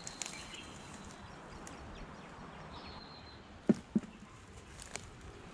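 Quiet outdoor background with two dull thumps about a quarter second apart shortly before the four-second mark, a few light clicks, and a faint thin high whistle twice.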